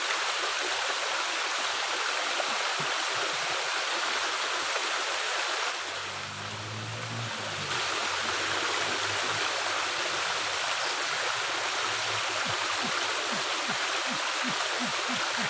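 Water running steadily through a culvert, a constant rushing hiss. A low hum comes in briefly about six seconds in, while the water sound dips for a couple of seconds.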